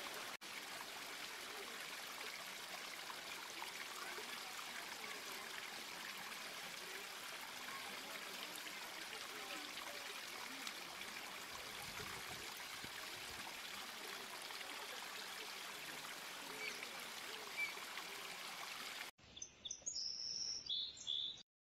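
Steady running, trickling water with faint bird calls. About nineteen seconds in it cuts to a quieter track with a few short, high chirps.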